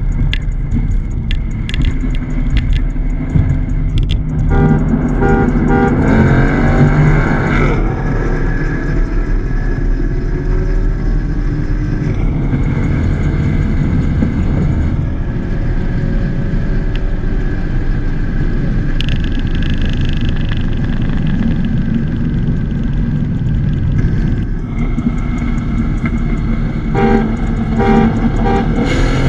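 Holden Commodore's LS3 V8 with muffler delete running under way, a steady low engine and road rumble. Short repeated car-horn toots sound about five seconds in and again near the end.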